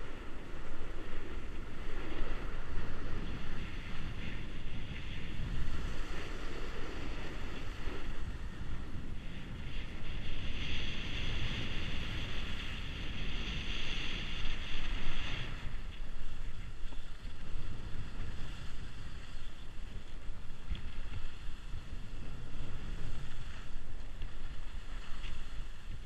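Skis sliding and scraping over groomed snow, with wind buffeting the microphone as the camera skier moves downhill. For several seconds in the middle the scraping hiss turns harsher and brighter.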